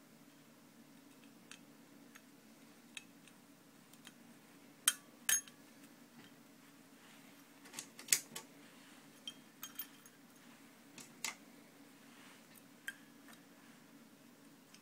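Scattered sharp metallic clicks and clinks as valves and valve springs are fitted into a small OHV engine's cylinder head. The loudest come about five seconds in and again about eight seconds in.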